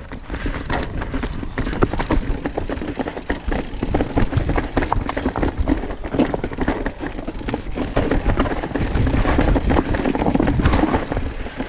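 Mountain bike clattering over rough rock: a dense run of knocks and rattles from tyres, chain and frame, over a low rumble.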